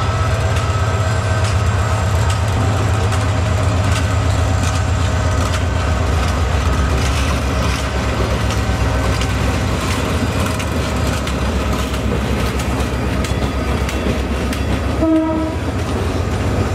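Bangladesh Railway diesel-electric locomotive passing close with a steady low engine drone, followed by its coaches clattering over the rail joints. A brief horn note sounds near the end.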